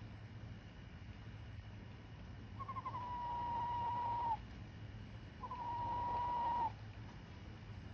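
Domestic turkey hen whistling: two long, high whistles, each held at a nearly steady, slightly falling pitch, the first opening with a few quick stuttered notes.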